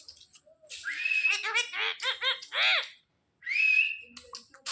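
Pet parrot whistling and chattering: a rising whistle, then a quick run of short high calls, and after a short pause another rising whistle.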